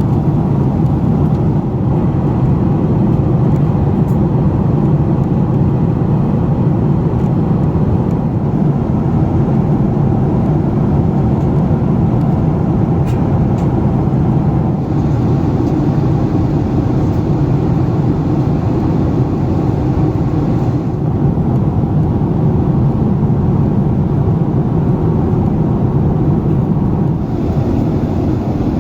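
Steady cabin noise of a Boeing 767-400ER in flight: a constant low rush of engine and airflow noise heard from inside the passenger cabin.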